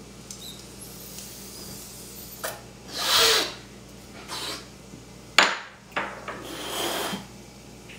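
A person smoking from a handheld pipe: a quiet draw, then loud breathy exhales about three seconds in and again near the end. A sharp knock comes about five and a half seconds in as the pipe is set down on the counter.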